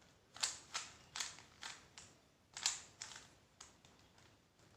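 Rubik's cube being twisted by hand: a string of quick, faint plastic clicks from its layers turning, about eight in all at uneven spacing with a short pause midway.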